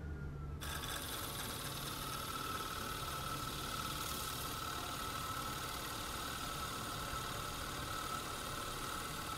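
Milling machine running steadily while its large cutter bores a 2 1/4-inch center hole through a glued-up laminated wooden propeller blank. There is a constant whine over a steady machine noise.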